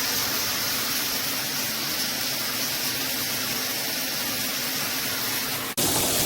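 Rain shower head spraying water in a steady hiss. It cuts off abruptly about six seconds in and is replaced by a slightly louder spray.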